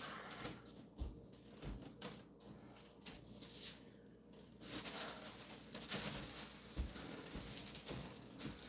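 Faint knocks and bumps of things being handled in a kitchen, then a steady hiss from about four and a half seconds in.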